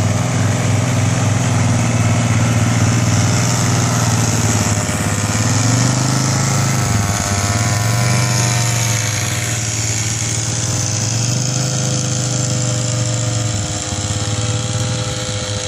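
A quad bike's engine and the spray bowser's small petrol pump engine running steadily together, with slight dips and rises in pitch.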